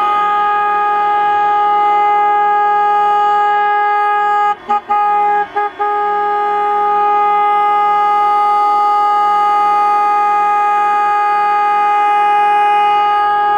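Boat horns held in one long, loud, steady blast, broken by two brief gaps about five seconds in. This is the traditional horn salute marking the close of the boat show.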